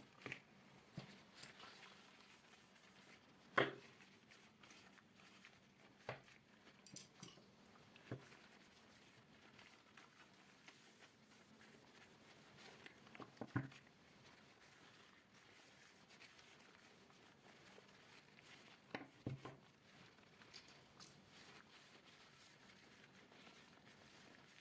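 Scattered light taps, clicks and knocks of small desk objects being handled and set down while they are cleaned, with near quiet between them. The sharpest knock comes about three and a half seconds in, and a quick cluster of taps comes near nineteen seconds.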